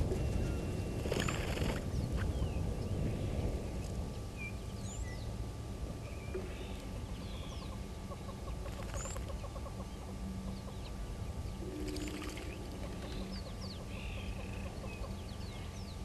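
Mixed birdsong at a waterhole: many short chirps and whistles from several small birds, scattered through the whole stretch, with a low wind-like rumble that eases after the first few seconds.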